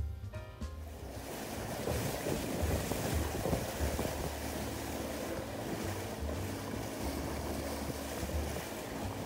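Wind buffeting the microphone over the rush of sea water from a boat moving along the coast, with music fading out in the first second and a faint steady hum coming in about halfway.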